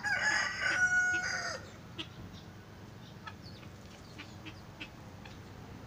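A rooster crows once, a call of about a second and a half that holds a steady note and drops in pitch at the end.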